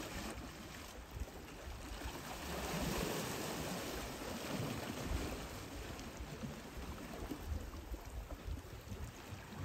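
Sea water washing against the rocky shore, with wind rumbling on a handheld phone's microphone. The wash swells up about three seconds in and then eases.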